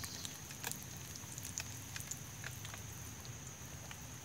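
Fish filet frying in hot oil in a camp pan: a steady faint sizzle with scattered small pops and crackles.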